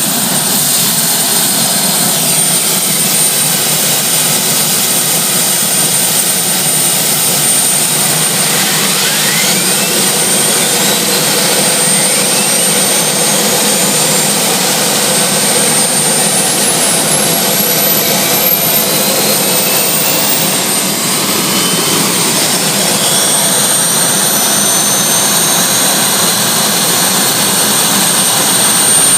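Turbine engines of a tractor-pulling tractor running during warm-up: a loud, steady jet-like whine, with the pitch sweeping upward several times in the middle as the turbines are revved.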